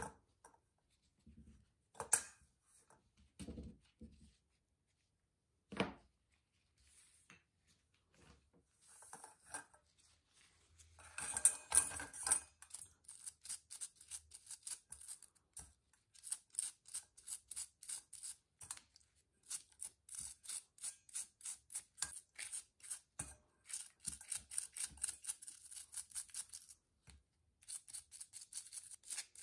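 Bristle brush scrubbing small metal gear parts in a steel bowl of cleaning liquid, in rapid back-and-forth strokes through the second half. The first half has a few knocks and clinks of the metal parts against the bowl.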